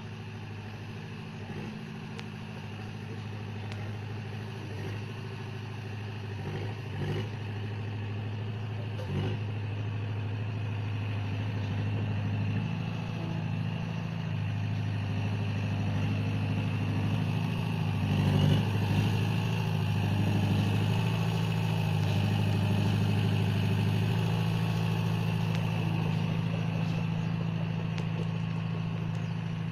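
Small Komatsu crawler bulldozer's diesel engine running steadily while it pushes soil with its blade, getting louder as the machine comes closer, with a short surge about two-thirds of the way through.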